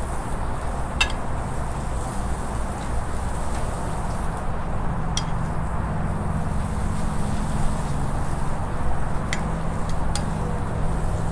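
Filet mignon steaks and halved romaine lettuce sizzling on a hot gas grill, with a few sharp clicks of metal tongs against the grate. A low steady hum sits underneath and grows stronger from about four seconds in.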